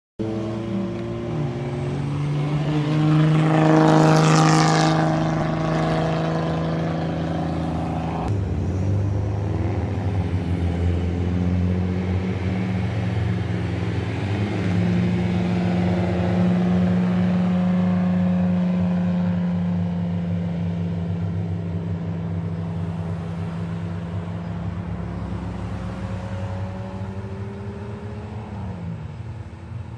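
Old Japanese cars with loud aftermarket mufflers, among them Nissan Skyline Japans and S130 Fairlady Zs, driving past one after another. The exhaust note rises and falls in pitch as the first car goes by, loudest about four seconds in. A steady low exhaust drone follows and fades slowly near the end.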